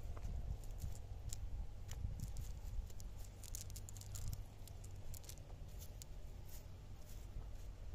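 Wet nylon fishing net and water weeds rustling and crackling as hands pick through them, with scattered small clicks over a low, steady rumble.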